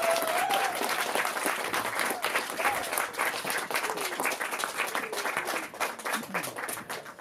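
Audience applauding, with a voice or two heard over the clapping at the start. The clapping thins out and fades away near the end.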